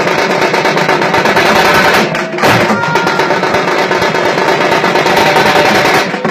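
A group of thamate frame drums beaten fast with sticks in a dense, driving rhythm. The playing dips briefly about two seconds in, then picks straight up again.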